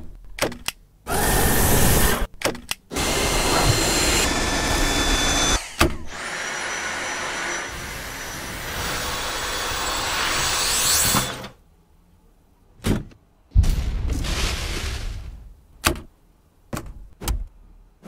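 Dyson V8 Absolute cordless stick vacuum running, a rushing noise with a faint high whine, broken by several quick cuts and clicks. A little past halfway it stops, and several separate clunks and clicks follow.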